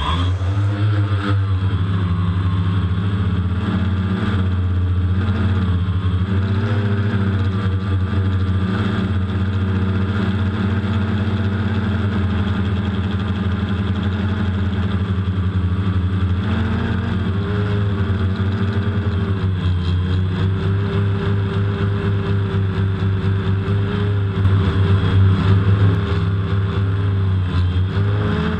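DJI Phantom quadcopter's propellers and motors buzzing in flight, heard from its onboard camera. It is a steady hum whose pitch shifts now and then as the motors speed up and slow down, briefly louder near the end.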